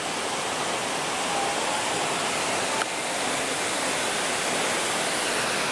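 Steady rush of falling water, an even hiss that never lets up, with a brief click about halfway through.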